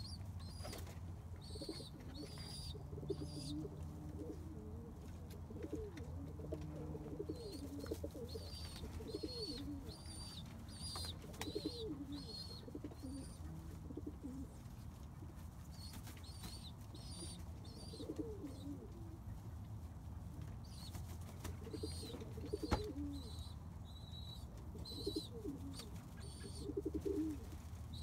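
Domestic pigeons cooing again and again, with short high-pitched chirps from other birds mixed in and a steady low hum underneath. Wings flap near the end.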